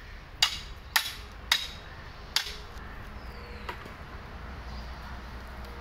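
Machete chopping into a bamboo pole: four sharp strikes in the first two and a half seconds, the first three about half a second apart, then one fainter strike a little over a second later.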